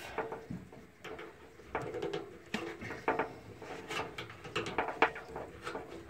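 Nylon zip tie being pulled tight around a furnace blower-motor capacitor, with irregular clicks and knocks as the capacitor is handled against its sheet-metal bracket; the sharpest knock comes about five seconds in.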